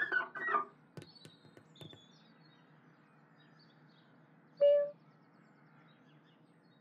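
Cartoon kitten mewing squeakily at the start, then a few faint squeaks as its paws slide down the window glass, and one short high mew nearly five seconds in.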